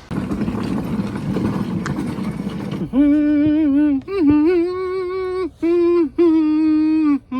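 A man humming a short tune in a few held, slightly wavering notes, starting about three seconds in, after a loud rushing noise.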